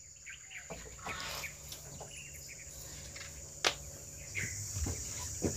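Steady high-pitched insect drone, with a few faint knocks and one sharp click a little past the middle.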